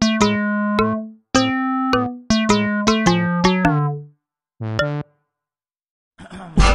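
A short synthesizer-keyboard tune: a string of pitched notes that come faster in the middle and stop about four seconds in, then two short notes near five seconds. After a brief pause, a different, busier piece of music starts near the end.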